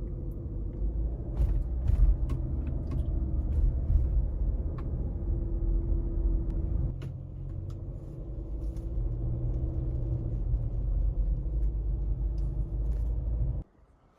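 Car running down the road, heard from inside the cabin: a steady low rumble of engine and tyres with light rattles and creaks. It cuts off abruptly near the end.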